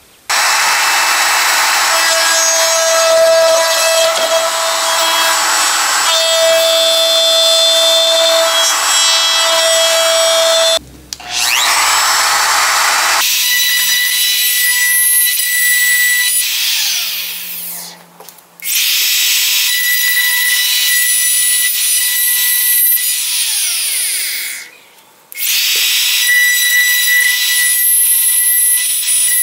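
Compact trim router running at high speed with a steady high whine while its bit cuts into wood, routing out dovetail waste. The sound breaks off briefly about eleven seconds in and dips twice more later.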